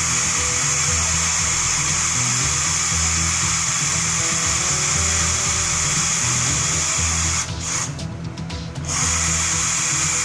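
Hitachi cordless drill running steadily as it bores a hole into the cut base of a deer antler; it stops for about a second and a half near the end and then starts again. Background music plays underneath.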